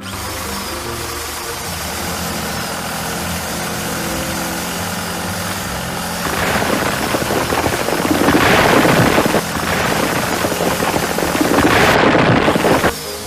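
A machine engine running steadily. It grows louder about six seconds in and surges loudly twice before dropping back near the end.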